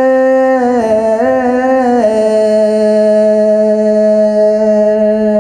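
A monk's voice singing Sinhala kavi bana, a Buddhist sermon chanted in verse, unaccompanied. There is a wavering melodic turn about a second in, then he holds one long steady note.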